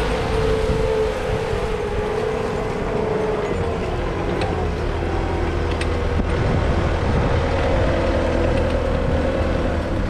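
CAT 257D compact track loader's four-cylinder turbo diesel engine running with a steady whine, which dips slightly in pitch a few seconds in and rises again near the end. The sound cuts off abruptly at the end.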